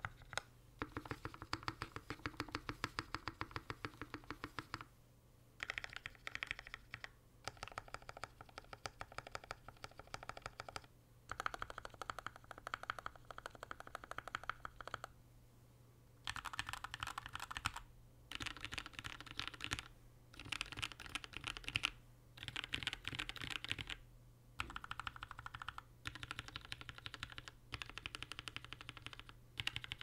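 Typing on a KN2.10² 60% custom mechanical keyboard with lubed and filmed Gateron Milky Yellow linear switches, GMK keycaps and an aluminium half-plate: rapid keystrokes in runs of a few seconds with short pauses between them.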